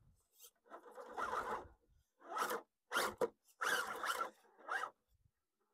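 Radio-controlled rock crawler's electric motor and drivetrain whirring in about five short throttle bursts as it tries to climb a rock pile.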